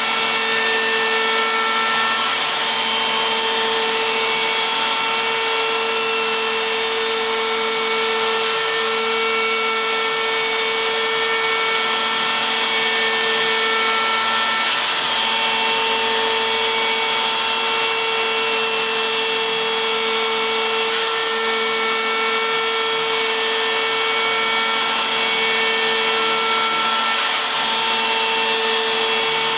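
Ox CNC router running a 3D finish cut: the spindle runs with a steady whine over a dense hiss. Higher stepper-motor tones come and go every few seconds as the axes change moves.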